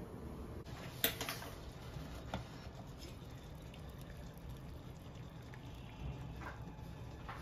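Water at a rolling boil, bubbling in a stainless steel pot, with a sharp clink of the pot lid about a second in and a few lighter clicks after.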